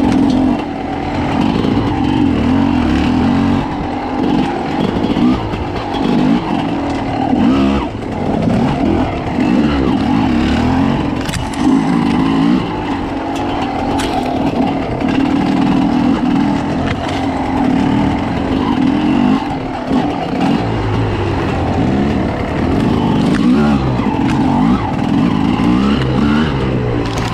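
Two-stroke enduro motorcycle engine, heard from the rider's own bike, revving up and falling back again and again as it is ridden over a rough forest trail.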